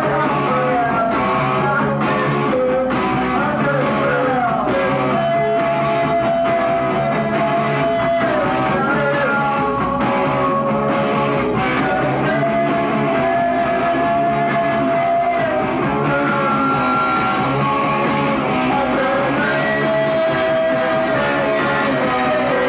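Punk rock band playing: distorted electric guitar over bass and drums, with long held notes and a voice singing at times.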